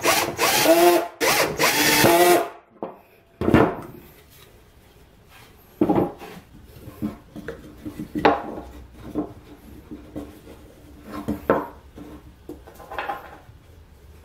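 Cordless drill-driver driving a screw into plywood, its motor whining in short bursts and stopping about two and a half seconds in. After that come several knocks and rubbing as plywood parts are handled and fitted together on a wooden workbench.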